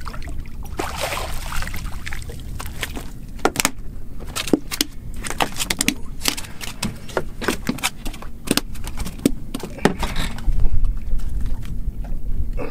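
A speckled trout splashing at the surface, then flopping on a fiberglass boat deck: a run of sharp, irregular slaps and knocks.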